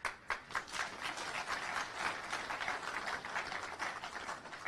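Audience applauding: many hands clapping densely and fairly steadily, thinning a little near the end.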